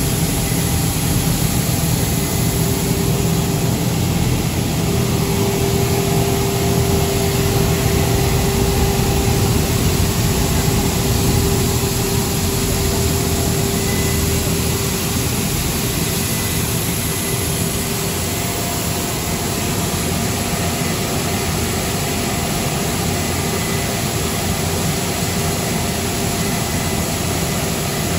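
3-in-1 shredder-type plastic recycling and pelletizing line running: a steady mechanical drone from its motors and extruder, with a constant hum through it that is clearer in the first half.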